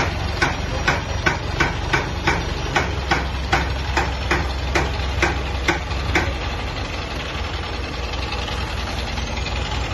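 Crane truck's diesel engine running steadily under a lift, with sharp regular clicks about two and a half times a second that stop about six seconds in.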